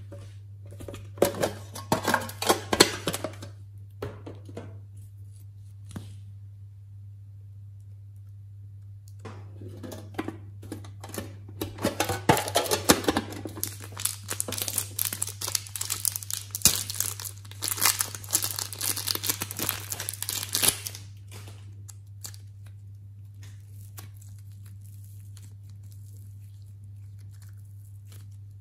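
Clear plastic wrapper around a lump of orange modelling clay crinkling and tearing as it is handled and opened. There is a short burst of rustling near the start, and a longer, louder stretch through the middle. A steady low hum runs underneath.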